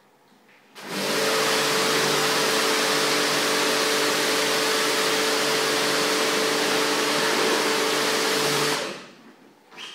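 Rug-cleaning machine worked through a hand-held wand over a wet rug: a steady rushing noise over a motor hum. It starts about a second in and cuts off suddenly shortly before the end.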